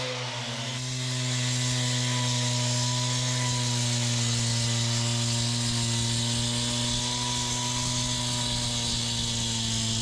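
Petrol-engined pressure washer running at a steady speed, with a broad hiss of spray over the engine note, washing the surface slurry off freshly poured exposed-aggregate concrete.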